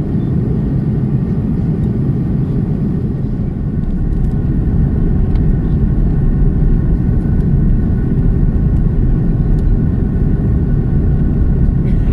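Steady low rumble of an airliner cabin in flight: engine and airflow noise, growing a little louder about four seconds in.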